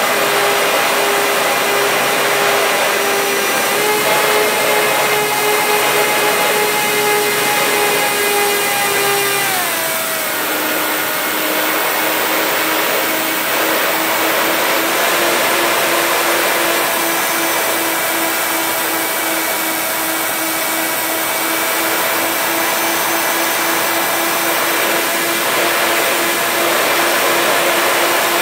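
Twin electric motors and propellers of a HobbyKing B-25 model warbird whining steadily in flight, heard from a camera on the aircraft with wind rushing over it. The pitch slides down about ten seconds in and holds lower for the rest.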